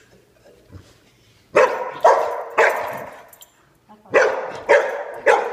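A dog barking at a crab on the floor: six sharp barks in two quick runs of three, starting about a second and a half in, with a pause of about a second between the runs.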